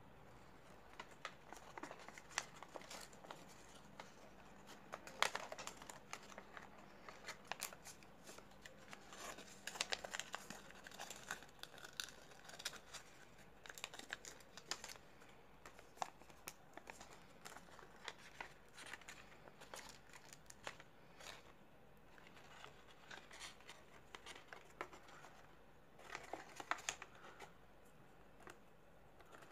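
A sheet of origami paper being folded and creased by hand: faint, irregular crinkling and rustling, with louder crinkles about five seconds in, around ten seconds, and near the end.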